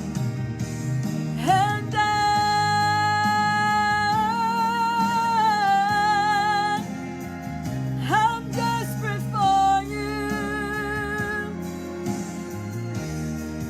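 Church worship band playing a slow song: a singer holds two long notes with vibrato, each sliding up into pitch, over a steady instrumental backing.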